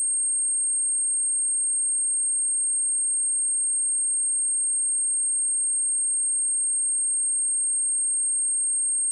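A steady 8534 Hz sine-wave test tone: one pure, high-pitched whistle held at a constant level, played to test a speaker or to shake water and dust out of it.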